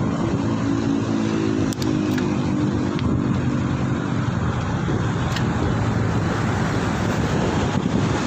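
Wind rushing over a cheap lavalier microphone on a moving bicycle, a loud steady noise from the wind noise the mic fails to block. During the first few seconds a motor vehicle's engine hum sounds under it.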